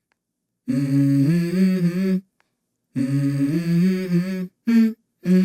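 A voice humming a short melody: two phrases of about a second and a half each, separated by abrupt silences, then a brief hummed note near the end.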